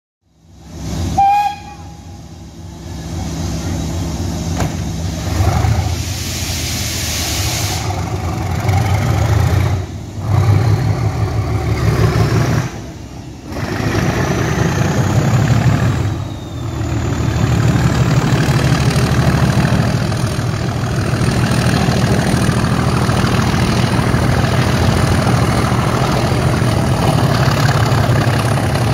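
Class 37 diesel locomotive's English Electric V12 engine thrashing under full power as the train pulls away, heard from an open carriage window over the wheels on the rails. A short high toot comes about a second in.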